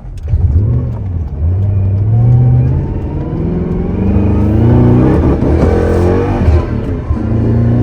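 Mercedes-Benz SL500 (R129) V8 engine pulling under acceleration. Its pitch climbs, drops back and climbs again several times as the gearbox shifts up.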